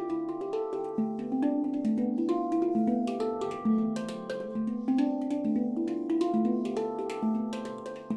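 Handpan of nitrided steel, tuned to D Dorian with ten notes, played with the hands: a steady flow of struck notes, several a second, each ringing on and overlapping the next.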